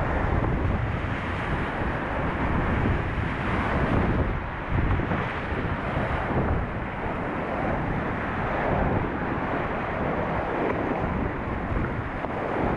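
Whitewater rapids on a river in high water, heard from a kayak running through them, rushing steadily and surging up and down as waves break over the boat. Wind buffets the microphone.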